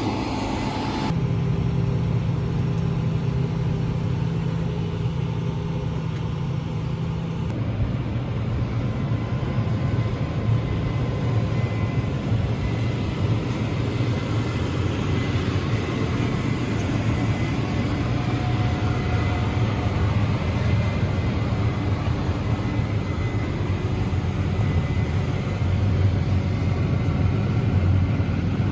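Heavy farm machinery engine running with a steady low drone. The sound changes abruptly about a second in and again about seven seconds in.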